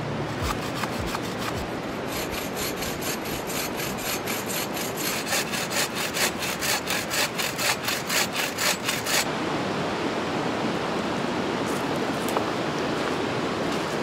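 Hand saw cutting through a dead birch branch in quick, even back-and-forth rasping strokes that stop about nine seconds in. A steady rush of river water then carries on alone.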